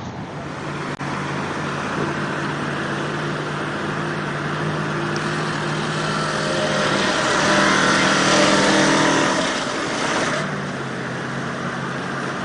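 Old off-road truck's engine running steadily under load as it wades through a fast, deep river, its note shifting about seven seconds in, over the rush of the churning water, which is loudest about seven to ten seconds in.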